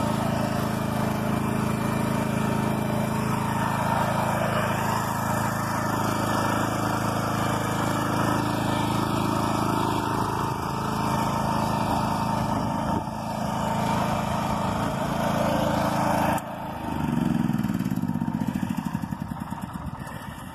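BCS walk-behind tractor's small engine running steadily, then shut off about three-quarters of the way through and spinning down to a stop over the next few seconds.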